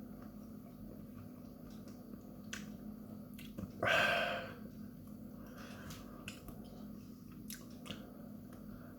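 A person chewing a drier chili pepper pod with the mouth closed: faint, scattered wet mouth clicks, with one louder, short noise about four seconds in.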